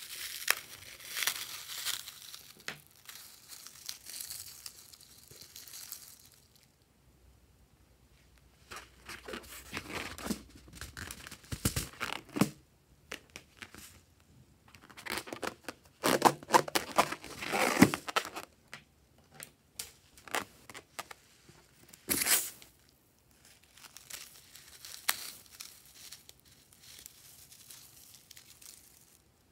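A rubber balloon cut open with scissors and its fillings of confetti sprinkles and tiny beads poured and sprinkled onto a dish of foamy slime. The balloon rubber and scattering bits make crinkling, rustling sounds that come in irregular bursts with short quiet gaps.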